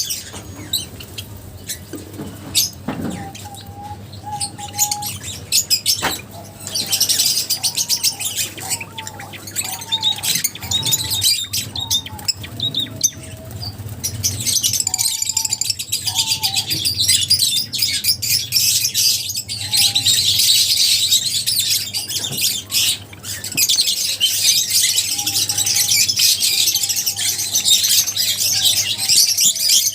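Lovebirds in a colony chattering and chirping in shrill, overlapping calls, growing busier about seven seconds in.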